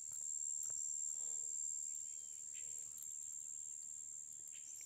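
Insects buzzing in a steady, high-pitched drone, a little louder in the first couple of seconds, with a few faint clicks.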